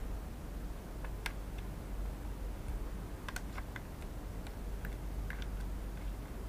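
Small, scattered clicks and ticks of a precision screwdriver working a tiny screw and handling the plastic case of a drone remote controller, a few taps at a time, over a low steady hum.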